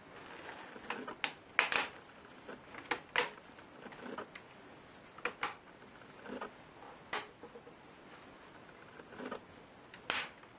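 Irregular sharp clicks and light knocks of small plastic and metal laptop parts being handled, about a dozen in all, the loudest a double click near the end.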